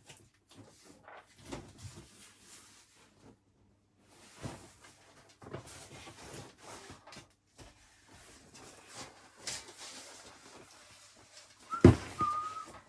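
Things being moved around on shed shelves: irregular rustling, scraping and light knocks. Near the end comes a loud knock, then a short wavering squeak.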